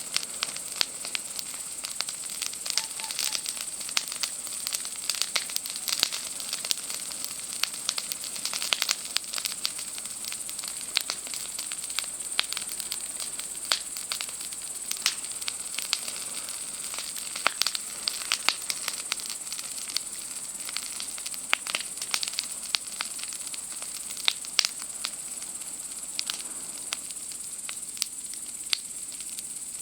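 Wood campfire crackling, with frequent irregular sharp pops and snaps. Underneath is a steady, high-pitched chorus of night insects.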